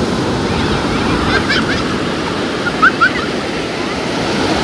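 Sea waves breaking and washing up over a sandy beach, a steady rushing surf.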